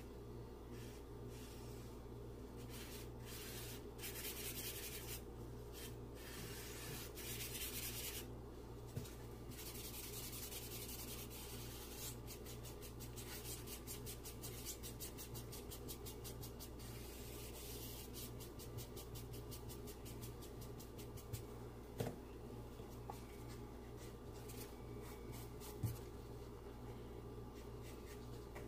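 Tissue and gloved fingers rubbing charcoal across drawing paper to blend it, in stretches of quick scratchy strokes over a steady low hum, with a few small knocks.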